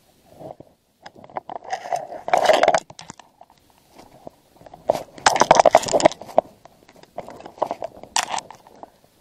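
Rustling, scraping and crunching handling noise as clothing and hands rub against a body-worn camera, with small clicks of stones, in three loud bursts about two, five and eight seconds in.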